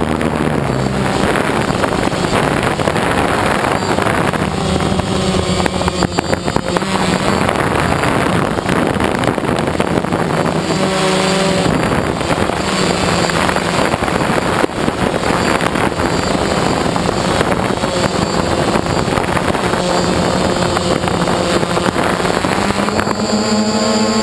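DJI Phantom quadcopter's motors and propellers running in flight, heard through the onboard camera's microphone along with rushing air. The motor hum shifts in pitch as the craft manoeuvres and rises near the end.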